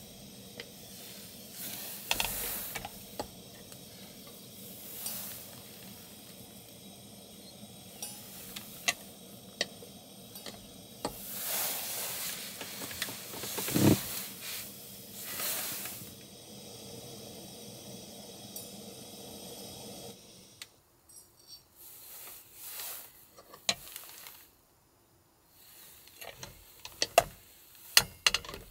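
Cooking over a gas stove: a steady hiss and sizzle, with several louder bouts of stirring or scraping and one knock near the middle. About twenty seconds in the hiss stops, and light clinks and taps of utensils and cookware follow.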